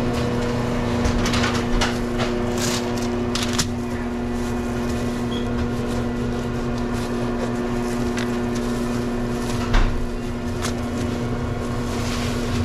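Steady electrical machine hum from restaurant kitchen equipment, with scattered light knocks and clatters of sandwich-making over it.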